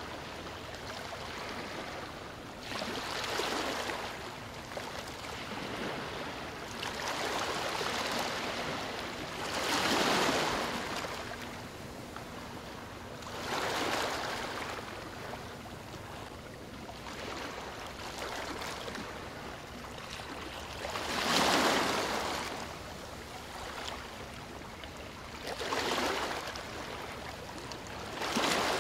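Small sea waves washing and sloshing close by, swelling and ebbing about every three to four seconds.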